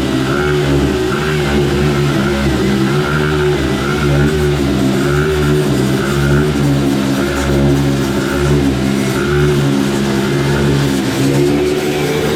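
Workshop machinery running steadily: a low, even droning hum with a higher tone that swells and fades unevenly over it.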